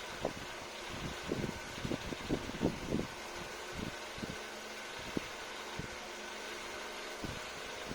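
Light clicks and taps of small tools and parts being handled while taking apart an iPad 2, a quick run of them in the first three seconds, then a few scattered ones, over a steady background hum.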